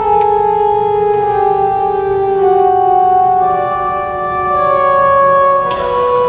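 Church organ playing a slow passage of long held notes, its voices moving stepwise down and then back up over sustained chords, with a new chord entering near the end.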